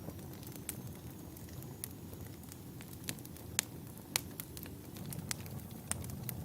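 Logs burning in a fireplace: irregular sharp pops and crackles over a low, steady rumble of flame, with two louder pops a little past the middle.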